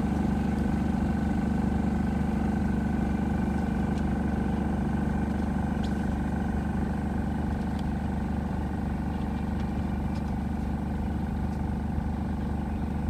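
An engine running steadily at one constant speed, an even low hum, with a few faint ticks over it.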